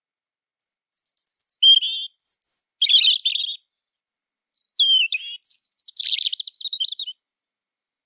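European robin singing two phrases of its song, each a rapid mix of thin high notes and lower warbling trills; the second phrase starts about four seconds in.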